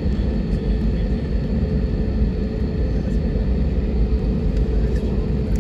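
Jet airliner heard from inside the cabin while it moves on the ground: a steady low rumble with a steady hum.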